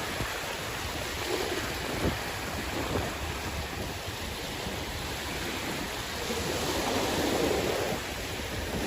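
Sea waves washing on the shore as a steady rushing noise, with one wave surging up and falling back over about two seconds near the end.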